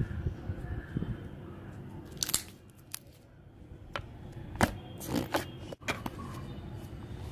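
Slime being handled, giving scattered sharp crackling clicks and pops over a low steady hum.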